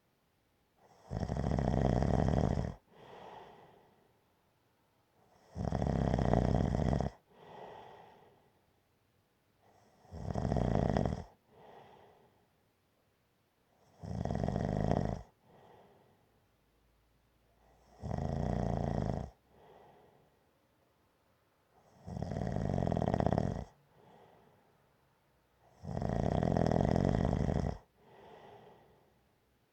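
Gentle snoring in a slow, even rhythm: a loud snore about every four seconds, seven in all, each followed by a fainter, shorter breath sound.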